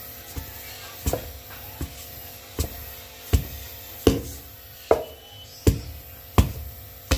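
Wooden pestle pounding a dough of rice flour, grated coconut and palm sugar in a mortar: a steady run of dull thuds, about one every three-quarters of a second. A faint steady hum sits underneath.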